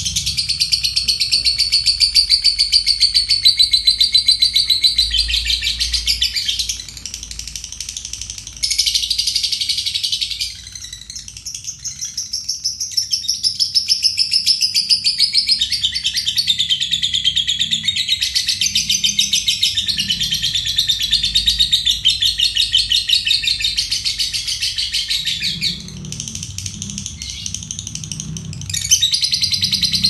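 Fischer's lovebird giving its long 'ngekek' song: a fast, high chattering trill of rapidly repeated notes, kept up for long stretches with a few short breaks.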